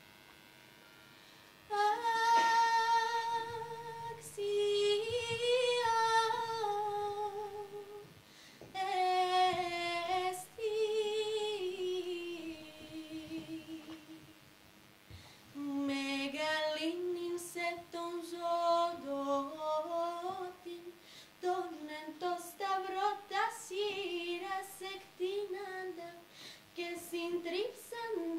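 A young woman's solo voice singing unaccompanied: a slow melody of long held, wavering notes that begins about two seconds in, breaks off briefly around the middle and then continues in shorter, more broken phrases.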